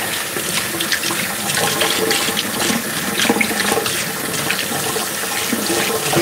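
Kitchen sink tap running steadily, the water stream splashing over hands being rinsed under it.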